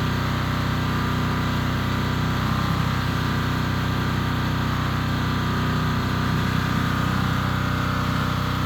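Diesel engine of a Mattis 3600 psi pressure washer running steadily while it drives the pump, with a hiss over the engine note.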